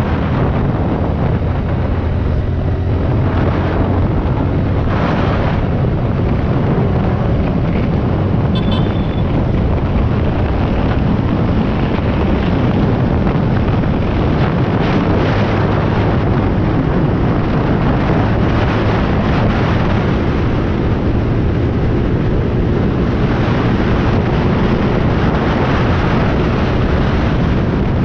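Steady wind rush on the camera microphone of a motorcycle being ridden along a highway, with the engine running underneath.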